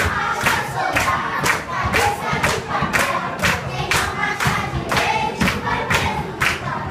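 A group of voices singing a Brazilian children's marching song over a sharp, steady beat about twice a second.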